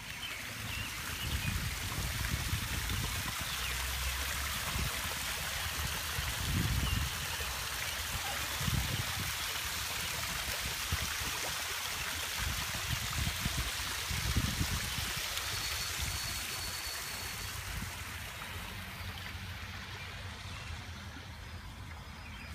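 Backyard pond waterfall splashing steadily, fading away near the end, with a few low thuds underneath.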